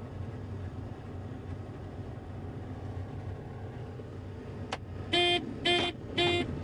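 Three short toots of a vehicle horn, about half a second apart near the end, over the steady low drone of a combine harvester running.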